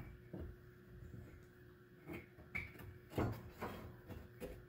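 Irregular light knocks and bumps as a new woodstove baffle wrapped in a fire blanket is worked up into place inside the firebox, the loudest knock about three seconds in.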